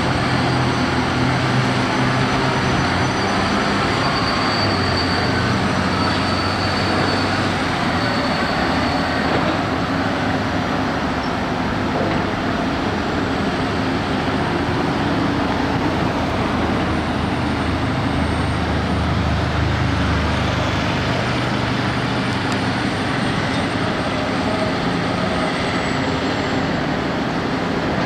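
Heavy diesel engines of an excavator and a dump truck running during loading, a steady loud drone whose low engine note shifts in pitch several times as the machine works. A faint high whine rises and falls in the second half.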